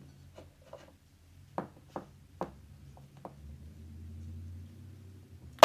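A handful of light taps and knocks, about seven short ones spread over the first three seconds or so, like small objects being handled or tapped.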